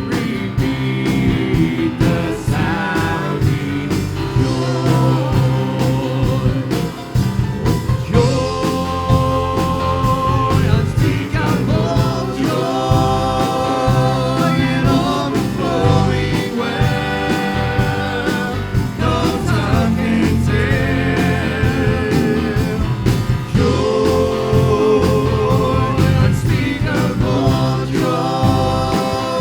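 Praise and worship song: voices singing a melody over instrumental accompaniment with a steady beat.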